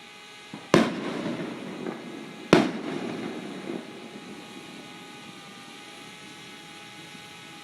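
Fireworks going off: two sharp bangs about two seconds apart, each followed by about a second of crackling, with a few smaller pops around them.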